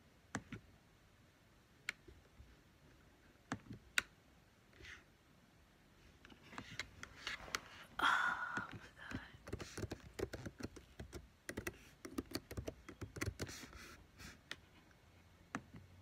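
Typing and clicking: a few single taps, then from about six seconds in a run of quick keystroke taps, with a brief louder noise about eight seconds in.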